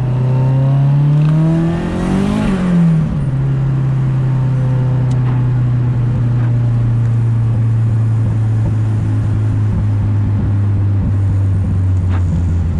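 A 2000 Chevy Blazer's V6 engine running, revved once about two seconds in and then settling back to a steady run.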